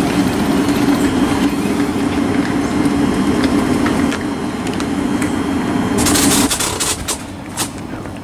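Thameslink Class 700 electric multiple unit standing at the platform with a steady low hum from its on-board equipment. About six seconds in comes a short sharp hiss of air, then the hum stops and a few clicks follow.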